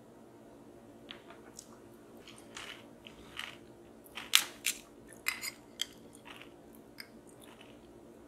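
Metal spoon cracking through the caramelized sugar crust of a crème brûlée in a ceramic ramekin: a series of short, crisp crackles and crunches, loudest about halfway through as the spoon breaks in and lifts a piece out.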